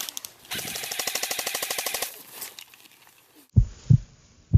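Airsoft gun firing a rapid full-auto burst of about a second and a half, an even rattle of shots. Near the end, two deep thumps like a heartbeat sound effect.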